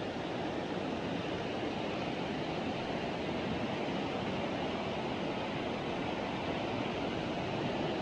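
Steady rush of a river flowing nearby, an even, unchanging water noise.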